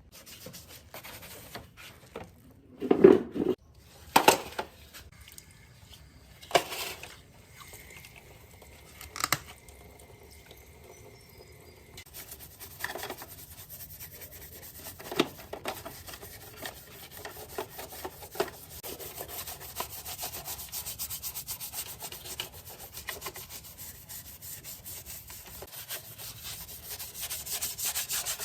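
A few sharp knocks as parts are handled, then steady abrasive rubbing by hand from about twelve seconds in, a dense fine scratching during restoration work on old speakers.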